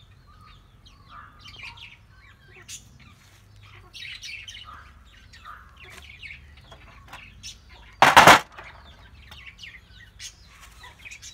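Birds chirping and calling, with a single brief, loud, noisy burst about eight seconds in.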